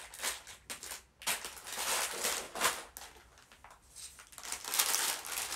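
Clear plastic bag of Lego pieces crinkling as it is handled, in several irregular bursts.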